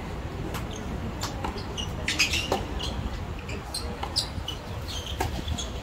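Tennis rally on a hard court: sharp pops of racket strikes and ball bounces, spaced irregularly about a second apart, the loudest about two seconds in.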